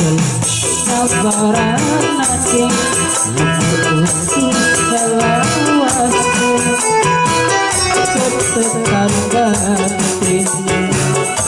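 Live band music with kendang hand drums, a Technics KN5000 electronic keyboard and guitar, and a man singing into a microphone.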